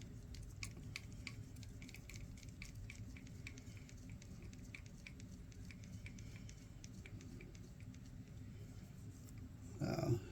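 Faint, irregular small clicks and ticks of a hex driver working a screw out of the plastic portal housing on an RC truck's axle, with a brief louder sound near the end.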